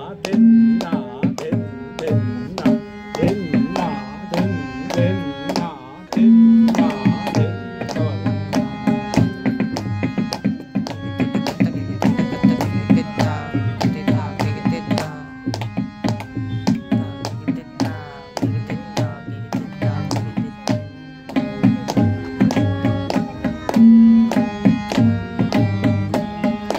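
Tabla played in a fast, dense solo of rapid strokes, with a harmonium sustaining a melody line beneath it.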